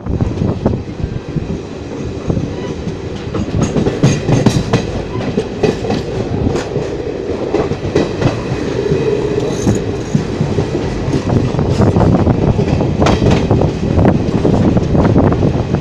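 Passenger train running along the track, heard from its open doorway: a steady rumble of wheels on rails with irregular sharp clicks and knocks as the wheels pass over rail joints.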